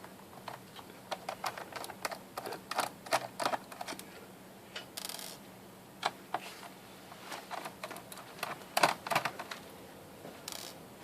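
Irregular small clicks and taps of a screwdriver working the screws out of an Acer Aspire E5-575 laptop's plastic bottom cover, with two short rattling bursts, one about five seconds in and one near the end.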